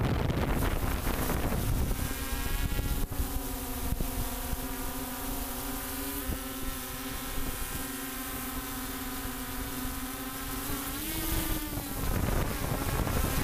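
Multicopter's electric motors and propellers humming at a steady pitch, heard on the copter's own microphone. Wind buffeting covers it for the first two seconds and again near the end, just after a brief rise in the motor pitch.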